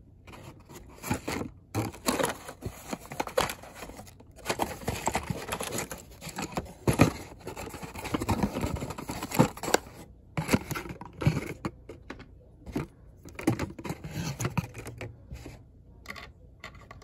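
A small cardboard box holding loose plastic LEGO minifigure parts being handled: irregular scraping and scratching of cardboard with short, sharp clicks.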